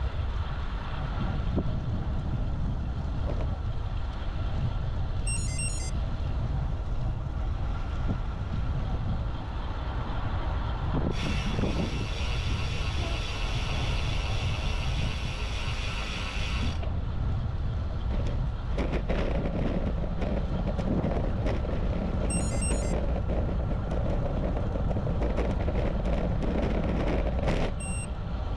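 Wind rushing over an action camera's microphone on a moving road bike, with tyre and road noise underneath. From about 11 to 17 seconds a brighter, higher whirring hiss joins in and then cuts off suddenly, and there are three brief high-pitched chirps.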